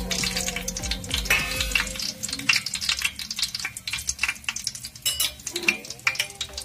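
Whole biryani spices, bay leaves among them, crackling and sizzling in hot oil in a large steel pot: a dense, irregular run of small pops.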